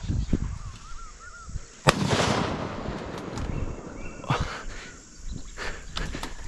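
Footfalls squelching through swamp mud, with a sharp loud crack about two seconds in followed by a second of rushing noise. Two short chirps come just before the crack.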